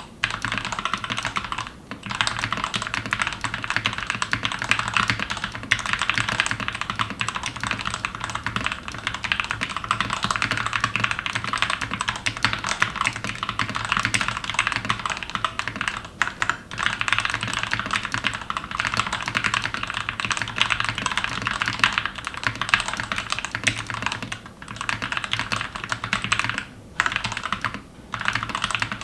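Fast, continuous typing on a custom Glorious GMMK TKL mechanical keyboard fitted with Gateron Ink Red and Gateron Yellow linear switches, giving a deep, thocky keystroke sound, with a few brief pauses.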